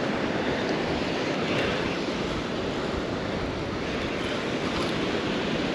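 Steady rushing noise of wind and breaking surf, even throughout with no distinct events.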